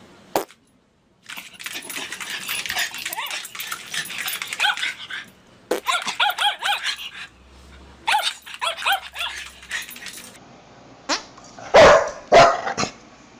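A dog barking and yipping in fast runs, then two loud single barks near the end.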